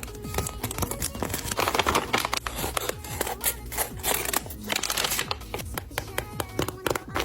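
Paper crinkling and rustling in quick, crisp strokes as a paper blind bag is handled and opened, over background music.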